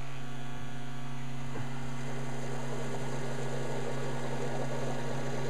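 Steady electrical hum from a home-built HHO generator running: its power supply, fan and electrolyte pump working as the cell makes gas. A soft rushing noise builds from about two seconds in.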